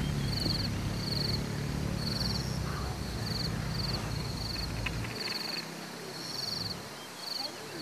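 Insects chirping in short, rhythmic trilled pulses, about one and a half a second, over a low rumble that fades about five seconds in.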